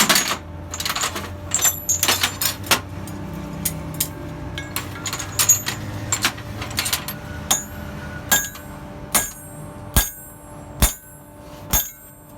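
Hammer striking metal on an anvil while a chain hook is forged by hand. Quick irregular blows come over a low steady hum for the first half. Then come about six slower, evenly spaced strikes, a little under a second apart, each ringing.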